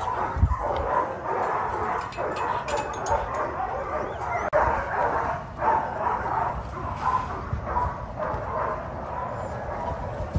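Several dogs barking and yipping in a continuous din, as from a kennel yard.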